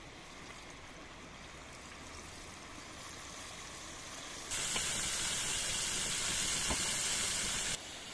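Beef burger patties sizzling in a hot saj pan over a wood fire: a loud hiss that starts abruptly a few seconds in and cuts off suddenly near the end, with a light tap or two of the spatula on the pan. Before it, a steady faint rush of flowing water.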